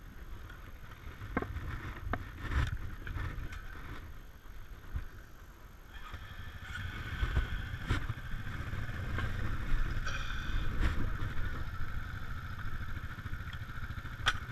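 Off-road vehicle engines idling, dirt bike and ATVs, with a steady low rumble. There are a few sharp knocks in the first few seconds, and from about six seconds in a higher engine tone joins.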